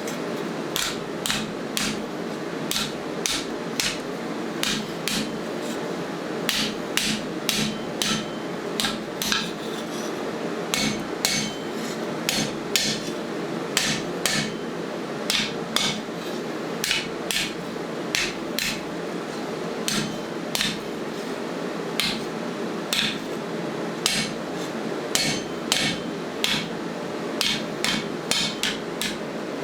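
Hammer blows on steel, forging a lawnmower blade into a machete: sharp metallic strikes about two to three a second, unevenly spaced with brief pauses, over a steady low hum.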